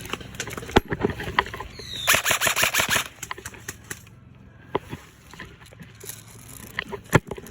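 Airsoft gun firing a rapid burst lasting about a second, with scattered single sharp clicks and knocks around it.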